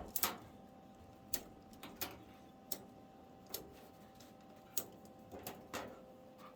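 Light, sharp clicks or taps at an irregular pace, roughly one or two a second, over a faint steady hum.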